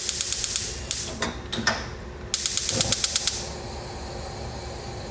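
Gas stove burner igniter clicking rapidly in two runs of sparks, each about a second long, the second stopping as the burner lights.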